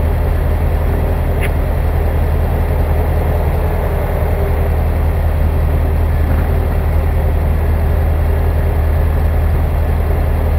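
Super Dimona motor glider's engine and propeller running steadily under power in flight, a constant low drone heard from inside the cockpit.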